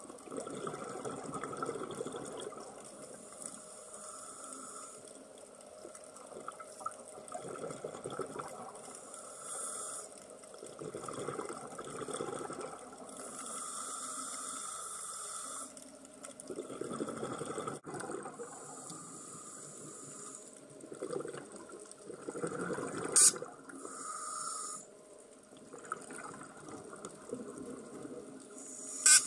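A scuba diver breathing through a regulator, recorded underwater: bubbly exhalations and hissing inhalations in turn, every few seconds. Two sharp clicks stand out, one about 23 seconds in and one near the end.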